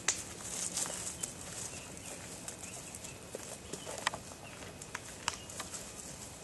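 Footsteps of two people walking on a dirt woodland trail: soft, irregular scuffs and taps on earth and dry leaves, with a few sharper ticks.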